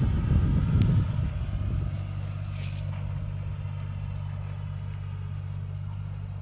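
Small diesel engine of a 26 hp Farmtrac tractor running hard and rough, then dropping back about a second or two in to a steady, even idle.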